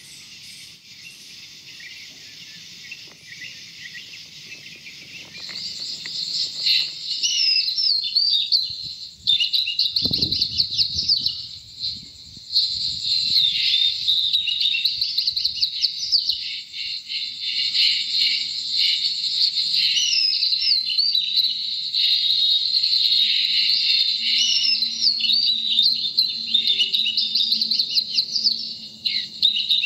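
Many small birds chirping and singing at once, a dense run of quick chirps and warbles that is quieter at first and fills in from about five seconds in. A low thud about ten seconds in.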